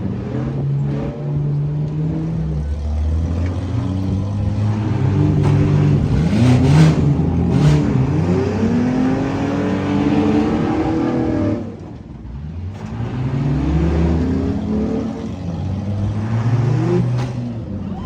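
Several demolition derby cars' engines revving hard together, their pitches rising and falling over one another, with a brief drop in level about twelve seconds in.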